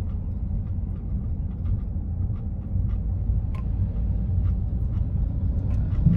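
Car cabin noise while driving: a steady low rumble of road and engine, with a few faint ticks.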